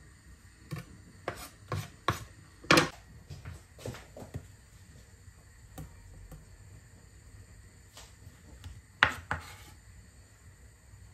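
A knife chopping on a cutting board: irregular single knocks and short scrapes, with the loudest knock about three seconds in and another near the end.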